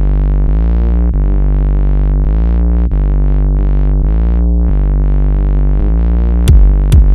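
Live electronic music: a sustained synthesizer pad over a steady low drone, its upper tones sweeping slowly up and down. About six and a half seconds in, sharp drum-machine beats begin.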